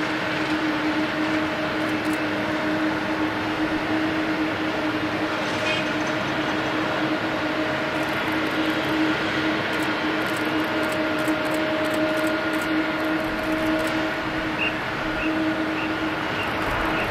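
Boeing 747-400D's four jet engines at taxi power, heard from a distance: a steady rushing drone with a held low hum and a fainter, higher whine.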